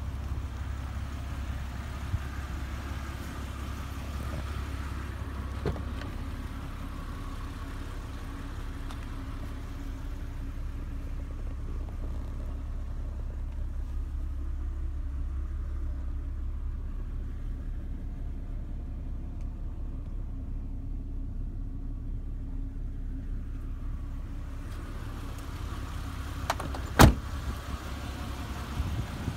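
Jeep Cherokee's 4.0-litre straight-six engine idling steadily, a low even hum. One sharp thump sounds near the end.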